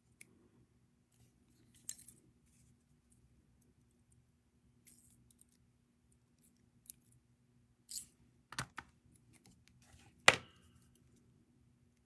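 Sparse small metallic clicks and ticks of jewellery pliers gripping and bending thin wire while a wrapped loop is formed, with the sharpest click about ten seconds in. A faint steady hum lies beneath.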